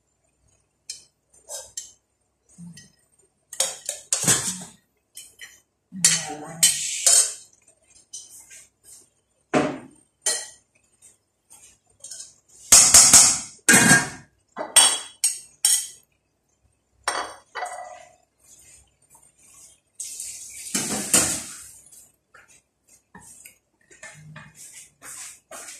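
Kitchenware clattering and clinking on and off: a scatter of sharp knocks and clinks of dishes, pots and utensils being handled, with a longer clattering burst about twenty seconds in.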